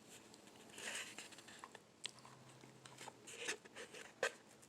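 A small jewelry gift box and its paper being handled: soft rustling about a second in, then a few light clicks and taps, the sharpest near the end.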